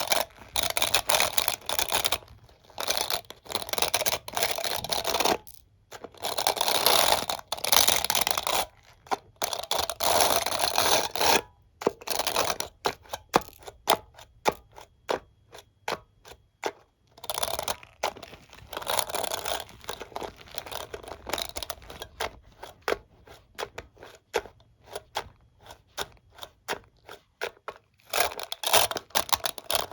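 Hairbrush and comb handled close to the microphone: bristles and teeth scraped in scratchy bursts of a second or two, alternating with long runs of quick small clicks.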